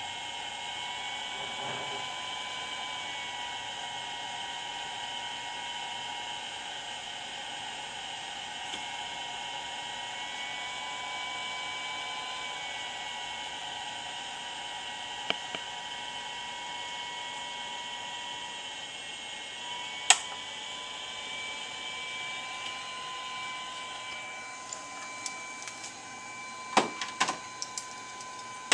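Cooling fans of a Puhui T-862++ infrared BGA rework station running during a GPU reflow, a steady whine with a few tones that shift slightly in pitch. A single sharp click comes about two-thirds of the way through, and a cluster of knocks and clicks near the end.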